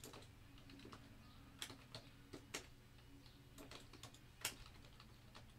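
Faint computer keyboard typing: irregular key clicks, a few at a time, over a low steady hum.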